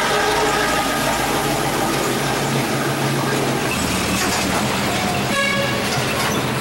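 Street traffic: a motor vehicle's engine running close by with a steady low hum under loud street noise, and a vehicle horn tooting once, briefly, about five seconds in.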